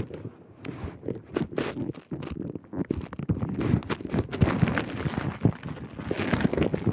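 Handling noise from cloth rubbing and pressing against the phone's microphone, a dense run of irregular rustles and soft thumps.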